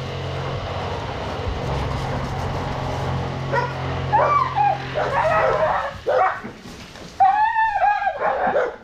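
Dog whining and yipping in rising-and-falling cries. The cries start about three and a half seconds in and are loudest near the end, over a steady low hum that stops about halfway through.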